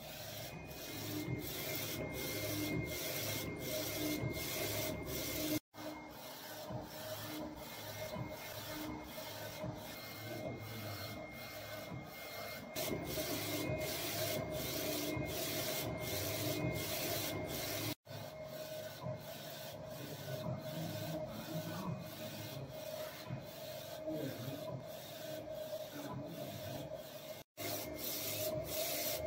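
UV inkjet label printer printing on aluminum foil, its print-head carriage shuttling back and forth with a steady motor hum and a regular rasping pulse about every two-thirds of a second. The sound drops out abruptly three times.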